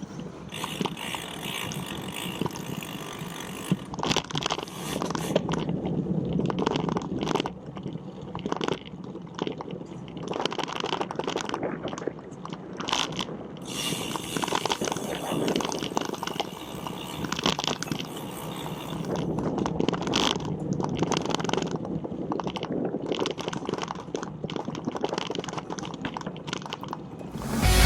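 Bicycle riding noise: wind rushing over the microphone, with irregular clicks and rattles from the bike.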